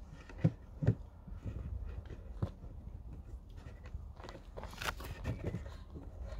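A metal hive tool clicking and knocking on the wooden top of a beehive a few times. About four and a half seconds in, this gives way to a rustling scrape as an insulation board is slid into place on the hive.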